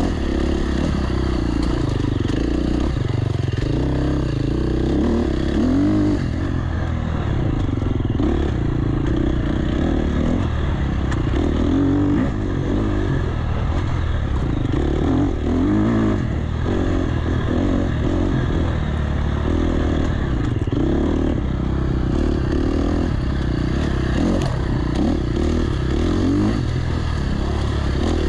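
Enduro dirt bike engine revving up and down continuously while being ridden, its pitch rising and falling with the throttle.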